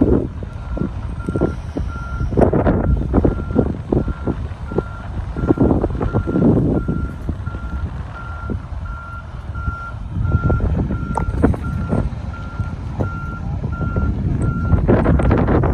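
Tractor-trailer's backup alarm beeping at an even, steady pace while the rig reverses, over a low, uneven rumble.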